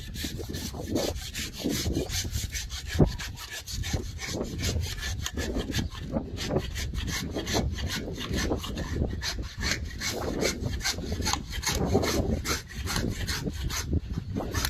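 Rapid, even scraping strokes, about five a second, of a butcher's blade being worked against a beef carcass.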